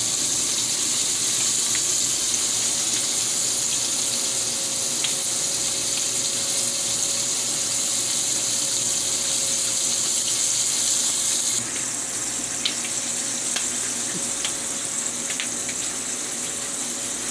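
Oil frying with a steady sizzling hiss, its highest part dropping away about two-thirds through, over a faint steady hum, with a few light clicks near the end.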